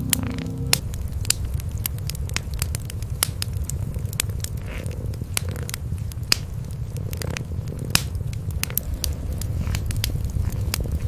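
Wood fire crackling in a fireplace, with irregular sharp pops, over a low, steady rumble.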